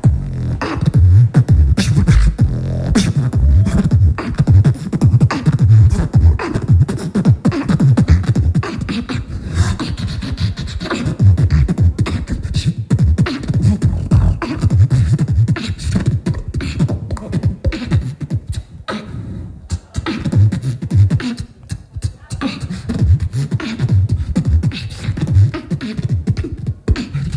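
Live beatboxing into a handheld microphone cupped at the mouth: a fast, dense run of vocal kick and snare hits with heavy bass.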